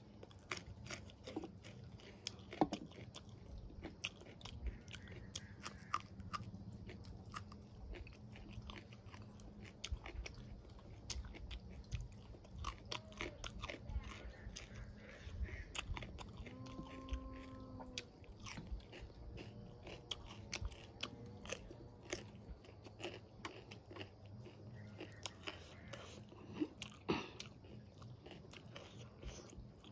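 Close-up chewing and biting of food eaten by hand: wet mouth clicks and smacks with many short crunches, as from raw radish slices. A brief hummed tone about halfway through.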